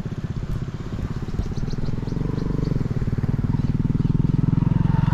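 A motorcycle engine running with a fast, even chugging, growing steadily louder as it comes closer.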